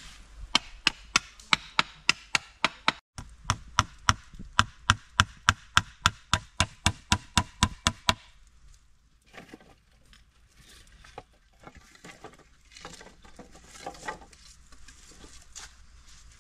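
Rapid chopping strikes on wood, about three a second for roughly eight seconds with a brief gap near the start, then quieter scattered knocks and rustling.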